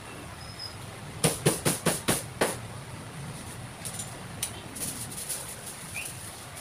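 Cleaver chopping a roast chicken on a chopping board: six quick, loud chops about a second in, then a few lighter taps and clatter.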